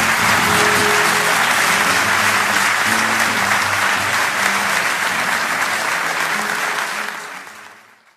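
Audience applauding steadily, then fading away near the end.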